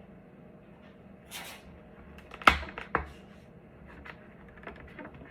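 Hands working on a motorcycle helmet's interior while fitting an intercom: a short rustle, then two sharp clicks about half a second apart and a few lighter taps.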